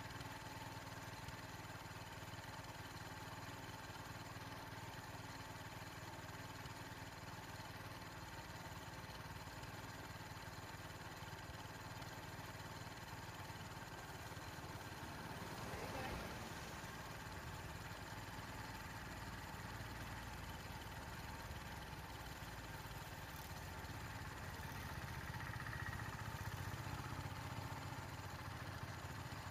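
Faint, steady low hum of a vehicle engine idling, with a brief swell about halfway through as a car passes close by.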